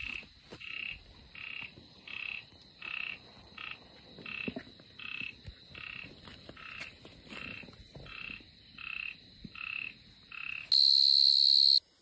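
A frog calling over and over in short, evenly spaced croaks, about two a second. Near the end a loud, high, steady tone sounds for about a second and cuts off suddenly.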